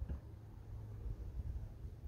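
Quiet outdoor background: a faint steady low rumble, with no distinct event.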